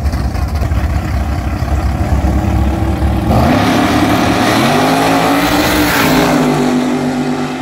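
Drag race car engines, first a loud, uneven low rumble at the starting line. About three seconds in, an engine note climbs sharply as a car launches and accelerates down the strip, then holds high and steady.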